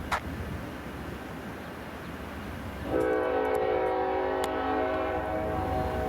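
Low rumble of a Norfolk Southern GE C44-9W diesel locomotive, with a short sharp chirp right at the start. About three seconds in, its five-chime Nathan K5LLA air horn sounds one long, steady chord that is still going at the end.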